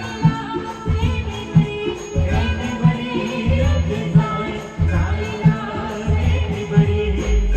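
Live Indian band music: a heavy drum beat about every half second under a pitched melody line.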